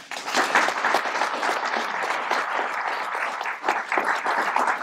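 Audience applauding, a dense steady clapping that breaks out all at once.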